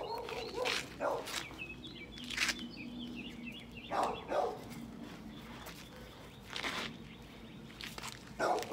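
A dog playing tug-of-war with a rope toy, with scuffling on dry dirt and short knocks from feet and paws. A bird chirps briefly about two to three seconds in.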